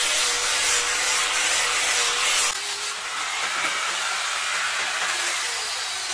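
Small electric angle grinder with a sanding disc running against kemuning wood: a steady motor whine under a harsh hiss of abrasion. About two and a half seconds in, the sound drops a little and the motor pitch wavers lower as the load on the disc changes.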